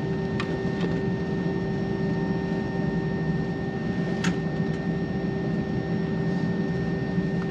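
Steady cabin hum inside an Airbus A321 airliner on the ground, with several constant tones and a few faint clicks about half a second in and again past the middle.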